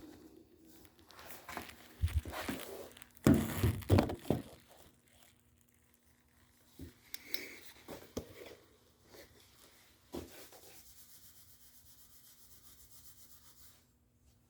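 Irregular rubbing and knocking from work on the broken tire iron, loudest about two to four seconds in, then fainter scattered clicks and a weak steady high hum near the end.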